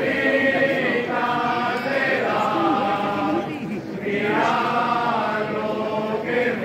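A group of voices singing a slow adoration carol together, holding long notes, with a short break for breath about four seconds in.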